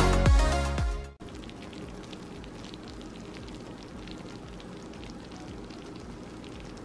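Background music cutting off about a second in, then the quiet, steady crackle and tiny pops of a hot chicken tot pie, its creamy filling bubbling in a glass baking dish.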